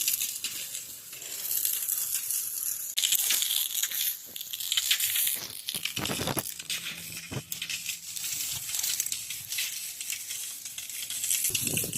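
Maandazi dough deep-frying in hot oil, a steady crackling sizzle, with a couple of brief knocks about six and seven seconds in.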